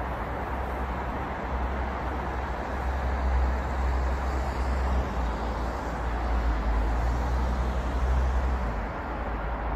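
Steady multi-lane road traffic noise: a continuous wash of passing cars over a deep, unbroken low rumble, gently swelling and easing.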